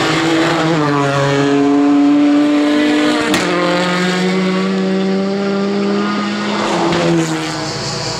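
Race-prepared Fiat 500 Abarth-based prototype engine running hard under load. Its pitch drops in steps about a second in and again about three seconds in, like gear changes. A sharp crack comes with the second drop.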